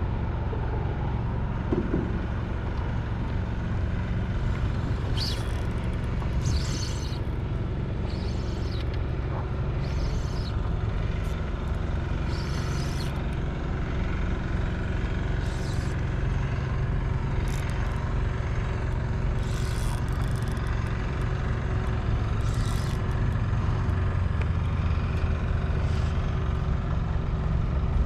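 Steady low rumble of open water around a small kayak, with short hissing splashes of choppy water against the hull every second or two.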